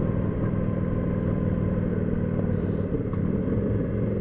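Motorcycle engine running steadily while riding, without revving up or down.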